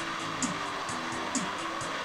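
Background music with a steady beat, about two beats a second, over a stepping bass line.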